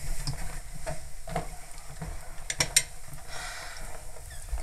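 Cutlery clinking against ceramic bowls and plates at a dinner table: a few scattered light clinks over a faint hiss.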